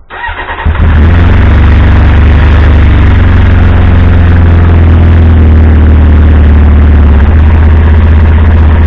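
A 2002 Triumph Speed Four's 599 cc inline-four cranks on the starter and catches within a second. It then idles steadily and loudly until it is switched off just before the end. This is the first start after an oil and filter change.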